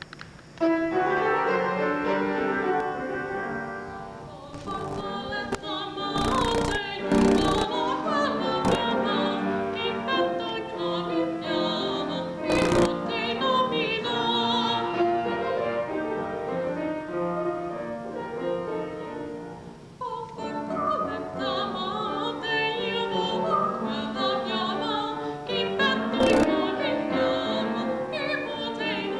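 A woman singing in a trained classical voice, holding notes with vibrato, starting about a second in. A few short bursts of noise cut across the singing.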